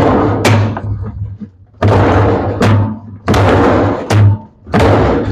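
Washing-machine agitator being wrenched and worked off its drive shaft: a series of short rattling, scraping thuds, each under a second, as it comes loose.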